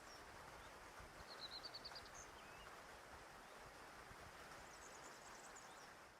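Faint outdoor ambience with small birds calling: a quick trill of about eight high chirps a second in, a single high note just after, and soft twittering near the end, over a low steady hiss.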